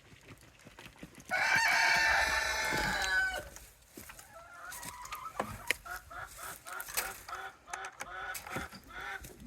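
A rooster crows once, a loud call about two seconds long. Then a run of short clucks follows steadily, about two or three a second.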